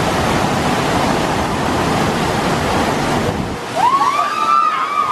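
Rushing, churning white water of a river rapids ride channel. About three and a half seconds in, the rush eases and riders on a passing raft let out several overlapping rising-and-falling cries.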